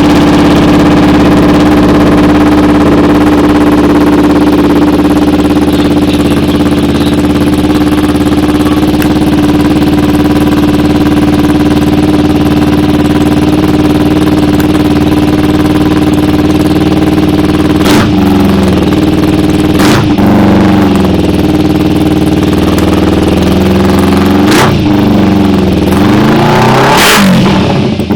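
Kawasaki Ninja 250R parallel-twin engine idling steadily through an Austin Racing full-system aftermarket exhaust. About two-thirds of the way in, the throttle is blipped three times in quick revs, then given a longer rev near the end.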